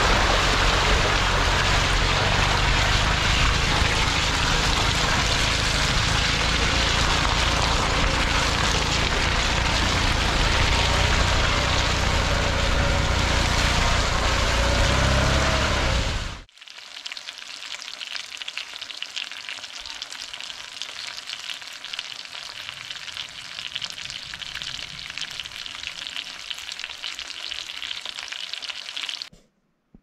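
A car driving along a muddy, flooded dirt track: engine running, tyres churning through water, and wind buffeting the microphone. It cuts off suddenly a little past halfway. A quieter, steady crackling of crucian carp frying in a pan follows and stops shortly before the end.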